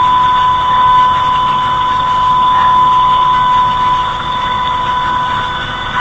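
Outdoor tornado warning siren sounding a steady, unbroken high tone, fading slightly in the last couple of seconds.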